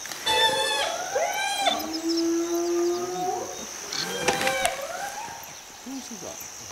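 Spotted hyenas calling at a kill: a run of drawn-out whines and yells that slide up and down in pitch, one held steady for over a second. A steady high insect drone runs underneath.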